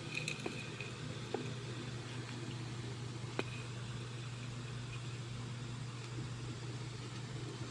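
Steady low hum, with a few faint clicks, the sharpest about three and a half seconds in.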